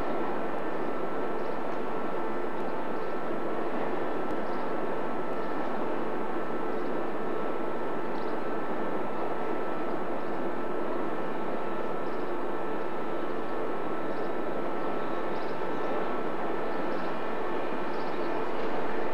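Train noise in a station: a steady mechanical drone with several high, steady whining tones as a Class 310 electric multiple unit draws slowly along the platform. It swells slightly near the end as another train passes close by.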